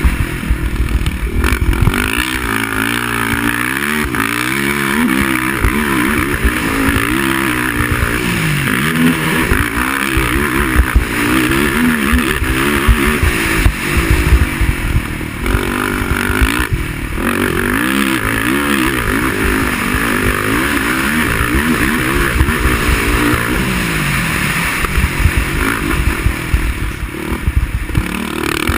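Racing quad (ATV) engine revving hard, its pitch rising and falling over and over as it accelerates, shifts and backs off around the track, with rough low rumble underneath.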